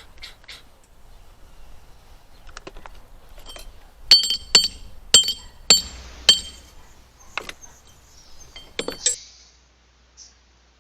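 A run of sharp metallic clinks, each ringing briefly at the same few high pitches: five loud strikes about two a second, then a few weaker ones, with lighter clicks before them.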